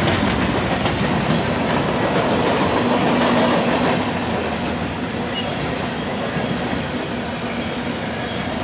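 Union Pacific freight train's cars (centerbeam lumber flatcars, covered hoppers and tank cars) rolling past: a steady rumble and rattle of steel wheels on the rails, easing slightly about halfway through.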